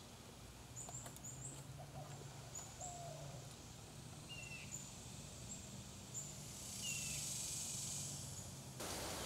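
Faint outdoor ambience of birds chirping and calling: scattered short high chirps and a few short falling calls, over a low steady hum. Near the end the sound cuts abruptly to a steady hiss.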